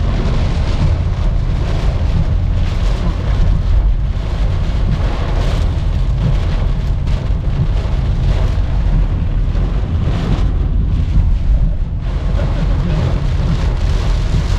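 Heavy rain drumming on a car's roof and windscreen, heard from inside the cabin over a deep, steady rumble from the moving car.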